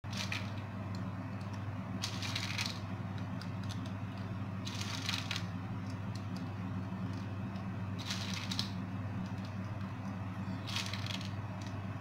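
Handfuls of pine nuts rattling and scattering in five short crisp bursts a couple of seconds apart, over a steady low hum.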